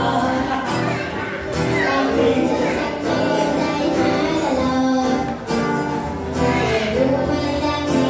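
A pop song played live on acoustic guitar and keyboard through PA speakers, with a man and a girl singing into microphones; the sound carries the echo of a large hall.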